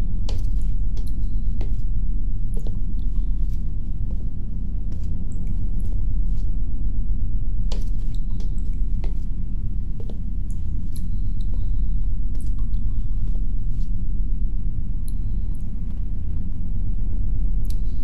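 Low, steady rumble of wind, heard muffled as if through thick walls, swelling and easing slowly, with scattered sharp clicks over it.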